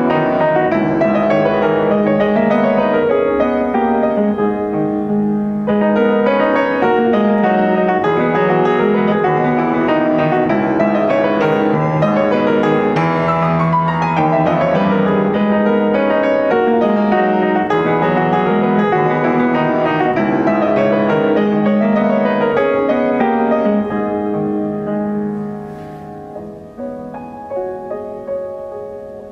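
Yamaha grand piano played solo, a flowing run of melody over sustained low notes. About three quarters of the way through, the playing turns much softer.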